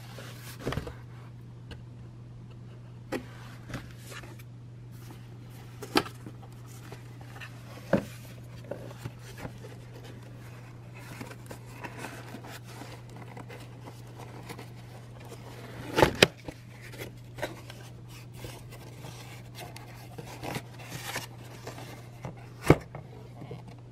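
Cardboard box being handled and unpacked by hand: scattered scrapes, rustles and knocks of the flaps and contents, with a sharp knock about two-thirds of the way through and another near the end, over a steady low hum.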